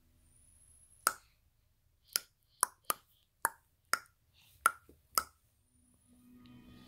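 A series of about eight short, sharp clicks, irregularly spaced over a few seconds, each with a brief hollow ring.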